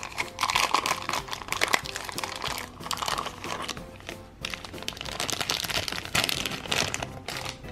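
Thin clear plastic bag crinkling as fingers open it and take out a small plastic toy figure, over background music.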